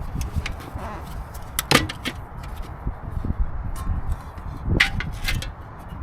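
Strong wind buffeting the microphone in a steady low rumble, with a few sharp knocks, the loudest three of them near two seconds in and near the end.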